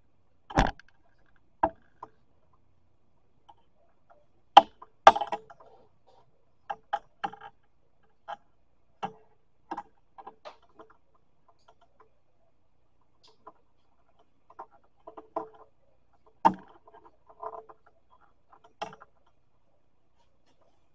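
Irregular clicks and knocks of small tools and parts being handled on an electronics workbench, the loudest two close together about five seconds in and another about sixteen seconds in.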